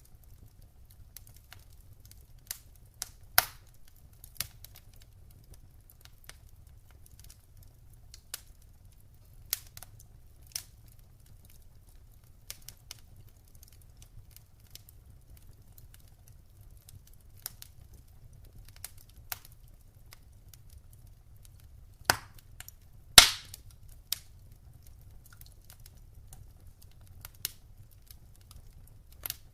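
Wood fire in a fireplace crackling, with irregular sharp pops over a faint low rumble; two louder pops come about a second apart late on.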